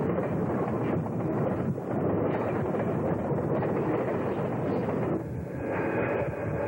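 Diesel freight locomotives (an MLW RS-18, a GP9 and an MLW M636) running past with a heavy train, a dense rumble with wind buffeting the microphone. Near the end the noise dips briefly and a few steady higher tones come in.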